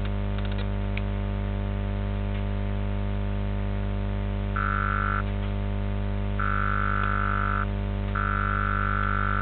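Steady electrical mains hum. About halfway through, a high electronic beep sounds three times in uneven lengths, the first short and the next two over a second long.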